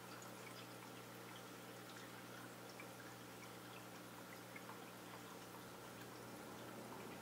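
Faint aquarium water trickling and dripping over a steady low hum, with scattered tiny ticks.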